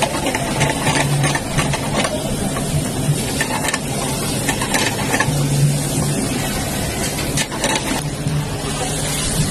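Vegetables frying in a frying pan, stirred and scraped with a wooden spatula in short irregular scrapes and taps, over a steady low hum.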